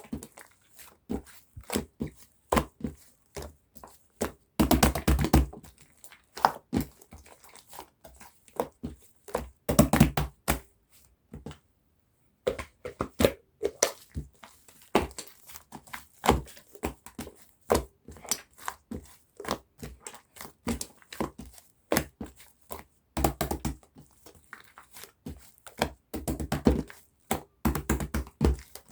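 Slime full of air bubbles being squeezed and stretched by hand. It gives irregular clicks and pops as the bubbles burst, with several denser crackling bursts along the way.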